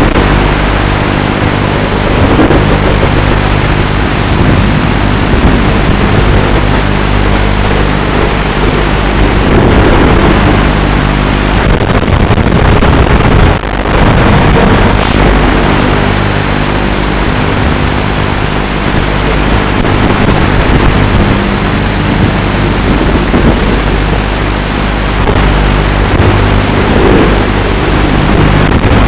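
FPV quadcopter's motors and propellers buzzing steadily in flight, with short swells in pitch as the throttle changes and a brief drop about halfway through.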